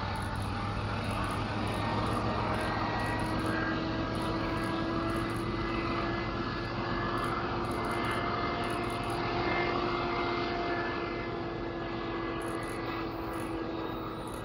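Diesel locomotive of a freight train running as it moves away down the line: a steady engine drone with a few held tones, easing off near the end.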